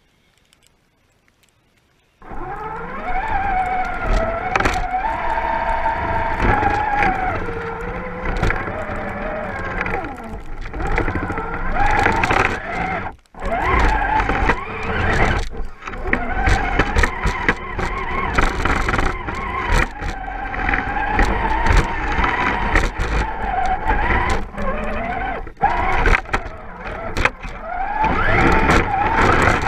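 Electric motor and gears of a radio-controlled truck whining as it drives through fresh snow. The sound starts suddenly about two seconds in, its pitch rises and falls with the throttle, and it cuts out briefly twice near the middle.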